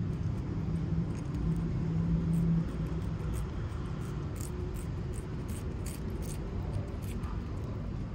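Low steady rumble of motor traffic, with a hum that drops away about two and a half seconds in. From about four seconds in, a string of short clicks as a cat licks a squeeze-tube treat.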